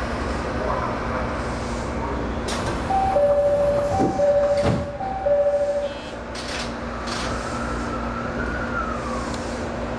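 Electric commuter train running, heard from inside behind the driver's cab, with a loud two-tone electronic chime sounding three times in a row, a high note then a low note, about three seconds in. A few sharp clicks and a faint rising whine late on come from the train.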